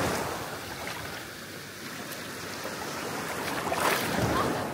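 Sea waves surging in a steady wash, swelling at the start and again about four seconds in.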